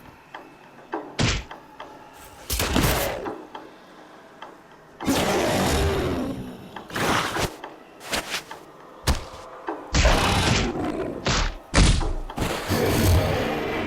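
A string of separate library sound effects, one after another: short thuds and knocks alternating with longer crashing, scraping noises about a second long each.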